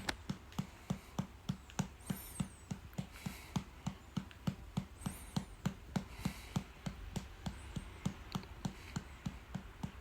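A hand patting a baby's back in a steady rhythm, about three soft pats a second, to bring up a burp.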